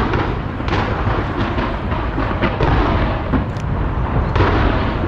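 Fireworks going off in a dense, rapid barrage: overlapping bangs and crackles, with a continuous low rumble beneath them.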